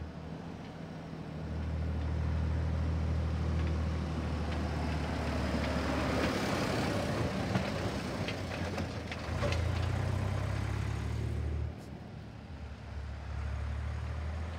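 Fendt tractor's diesel engine driving past: a steady low drone that grows louder as it comes close, is joined by tyre and road noise at its loudest about six seconds in, and drops off suddenly near twelve seconds as it pulls away.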